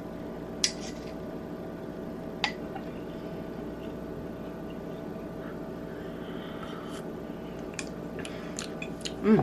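Small electric milk frother motor running with a steady hum while the coffee and half and half are mixed. A few light clicks, like utensils on a cup, come once early, once around two and a half seconds in, and several times near the end.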